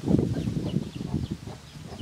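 Chickens clucking, with small birds chirping in short, high repeated notes. A low rumbling noise is loudest just at the start.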